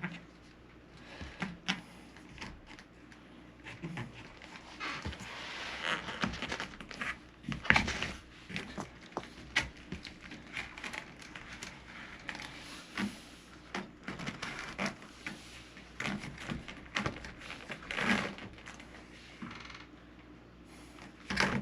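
A new door sweep being handled and tried onto the bottom edge of a door: scattered clicks and knocks, with crinkling and rustling about five to eight seconds in.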